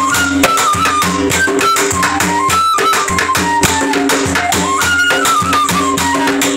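Bélé music: a bamboo transverse flute plays a melody that steps down and climbs back in repeating phrases, over a bélé drum played by a drummer sitting astride it and rapid clicking percussion.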